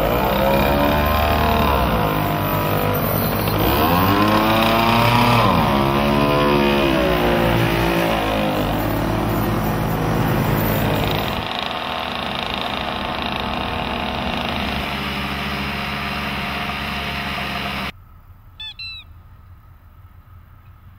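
A small two-stroke moped engine revving, its pitch rising and falling several times as it pulls away, then running more steadily. About 18 seconds in it cuts off suddenly to a much quieter background with a few brief high chirps.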